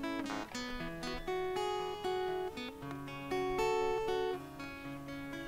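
Soft background music: an acoustic guitar picking a slow run of notes and chords.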